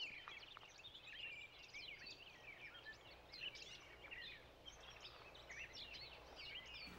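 A faint chorus of small birds chirping, many quick overlapping calls with no pause, as a morning ambience.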